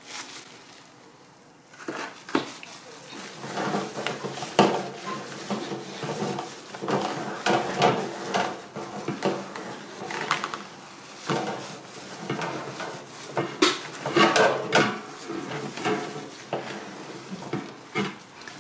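Wet microfiber cloth rubbed over a metal wire-mesh fan guard, the grille rattling and clinking under the hand with many sharp clicks and knocks, quieter during the first two seconds.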